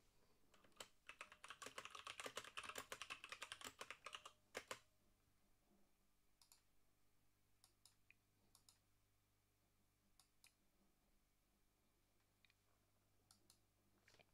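Typing on a computer keyboard for about four seconds, a quick run of key clicks, followed by a few scattered single clicks.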